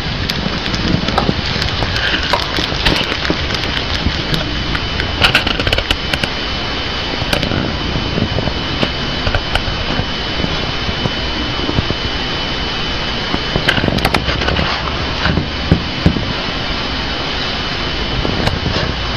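Hamster nibbling a bok choy stem: scattered crisp clicks and crunches over a loud steady hiss with a thin high whine.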